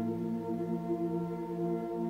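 Ambient background music: slow, held tones that barely change.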